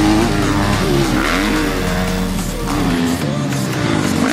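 Dirt bike engine revving up and down, its pitch rising and falling as the throttle is worked through a turn. The sound shifts to a different engine about three seconds in.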